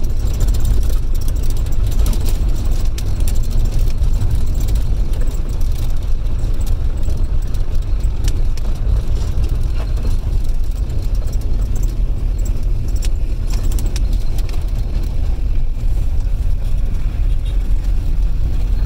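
Steady low rumble of a car's engine and road noise, heard from inside the moving taxi, with faint light clicks and rattles.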